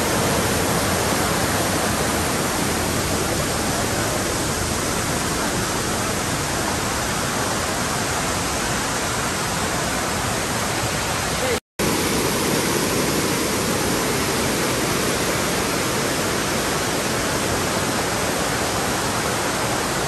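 Forest stream rushing over rocks in small cascades: a steady, even rush of water, broken once by a momentary gap a little past halfway.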